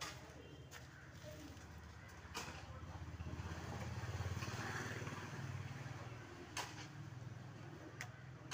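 A motor vehicle passing by: a low engine rumble that swells to its loudest about halfway through, then fades, with a few sharp clicks.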